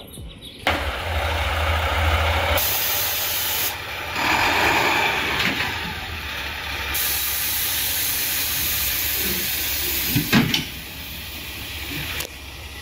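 Semi tractor uncoupling from its trailer: loud air hissing that starts suddenly and runs in several long releases over the diesel engine running, with a sharp clunk about ten seconds in.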